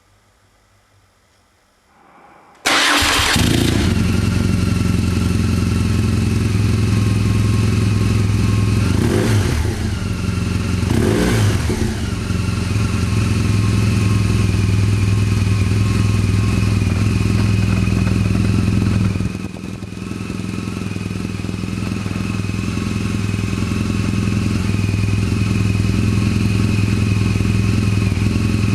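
BMW R1200GS boxer-twin engine with an Akrapovic exhaust, started about two seconds in: it catches suddenly and settles into a steady idle. It gets two quick throttle blips a third of the way through, then idles on, with a brief dip near two-thirds through.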